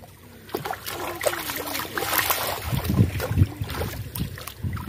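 Shallow floodwater sloshing and splashing irregularly as bare feet wade through it and hands grab at the water, with a few heavier splashes about three seconds in.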